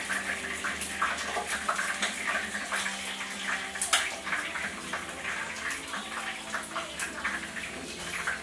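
Tempura-battered chicken wings frying in a skillet of shallow hot oil: a steady crackling sizzle full of small pops, with one sharper pop about halfway through.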